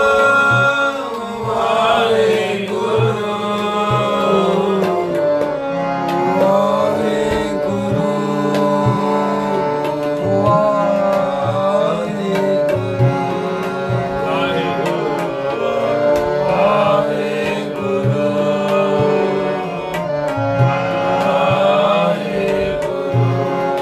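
Sikh shabad kirtan: a man singing drawn-out devotional phrases while playing harmonium, the harmonium's reeds holding steady chords under his voice, with tabla accompaniment keeping a steady beat of low bayan and sharper dayan strokes.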